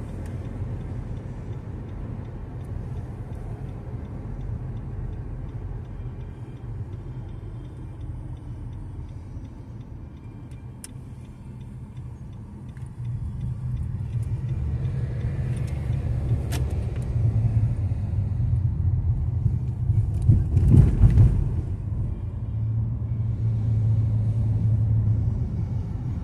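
Low rumble of a car's engine and tyres heard from inside the cabin while driving. It grows louder about halfway through, with a brief louder surge a few seconds before the end.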